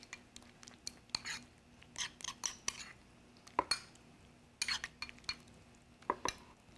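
A metal utensil stirring a thick mayonnaise sauce in a bowl, scraping and clicking against the bowl's sides in irregular short strokes.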